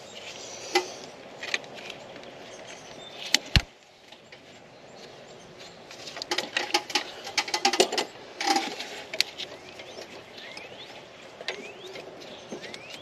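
Pliers working a spring squeeze clamp off a power steering return hose on the pump: scattered metallic clicks and knocks, with one sharp click about three and a half seconds in and a busy run of clicks from about six to nine seconds in.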